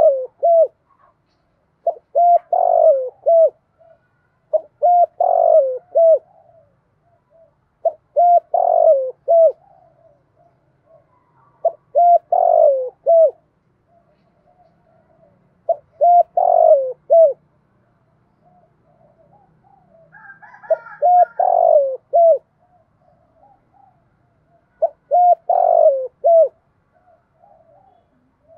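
Spotted dove cooing its calling song: a phrase of a few short coos ending in a falling note, repeated eight times, one every three to four seconds, with softer coos in between.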